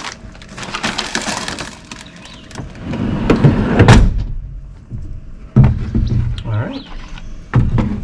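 Crinkling of a plastic snack bag, then a wooden truck-bed drawer sliding shut and ending in a thump about four seconds in. A couple more knocks follow.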